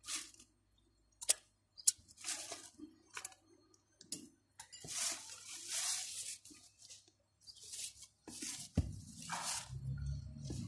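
Scattered bursts of rustling and a few sharp clicks. Low background music comes in near the end.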